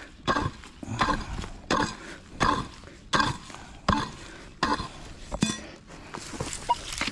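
Metal digging tool striking into soil in a steady rhythm, about one stroke every 0.7 s, with a slight clink on each stroke; the strokes stop after about five seconds.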